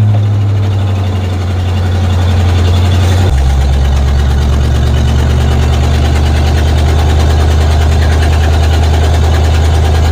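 1950 Ford F1 pickup's 8BA flathead V8 running steadily as the truck is driven. The engine note drops suddenly to a lower pitch about three seconds in.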